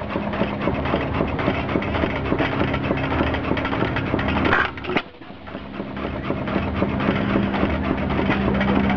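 Antique single-cylinder, hopper-cooled stationary gas engine idling with a fast, steady putt and mechanical clatter, a steady hum underneath.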